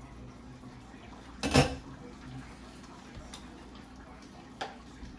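Metal cookware clanking: one loud knock with a short ring about a second and a half in, then a couple of lighter taps, as a utensil or lid strikes a cooking pot.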